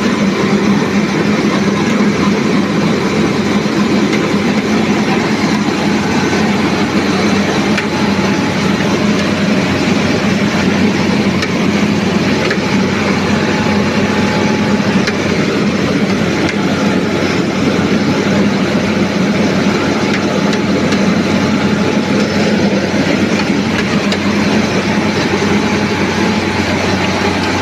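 NG 25D combined rice milling machine running steadily: a loud, unchanging machine drone with a strong hum under a dense hiss.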